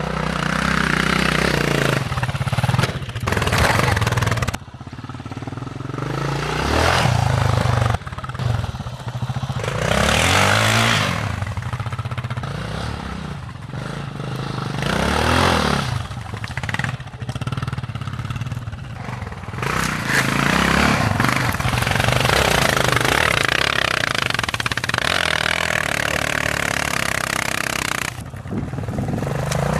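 Yamaha XT600's single-cylinder four-stroke engine being ridden hard, revving up and easing off again and again, its pitch rising and falling.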